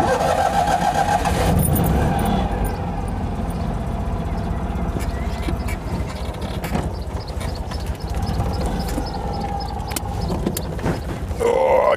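Citroën 2CV's freshly fitted air-cooled flat-twin engine running as the car drives off, its note rising and falling.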